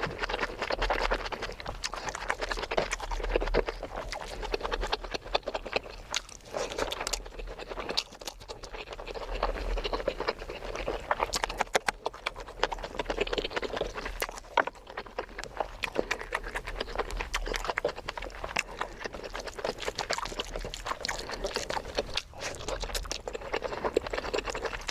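Close-miked eating sounds: chewing and wet mouth noises of rice and curry, with many small clicks and smacks throughout.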